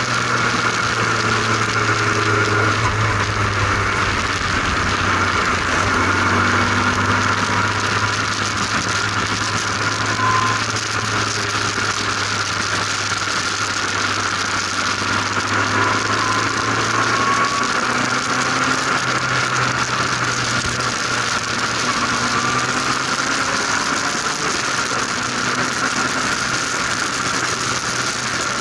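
Formula RP1 single-seater race car's engine running steadily at speed on track, heard from the open cockpit, with its pitch shifting slightly as the revs change.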